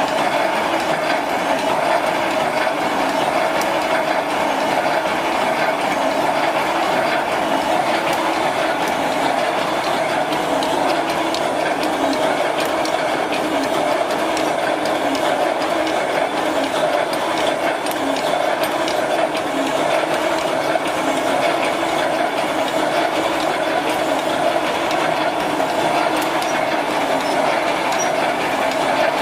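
Automatic roll-type wire mesh welding machine running continuously: a steady mechanical rattle with rapid fine clicking from its feed and welding mechanism.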